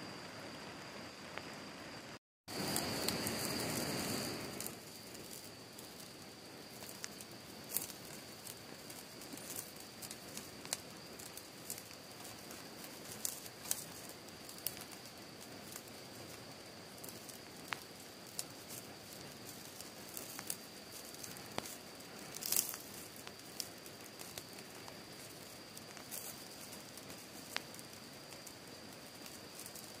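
Wood fire burning in a small folding fire stand, crackling with scattered sharp pops and snaps over a soft steady hiss. The hiss swells for a couple of seconds early on. A faint steady high tone runs underneath.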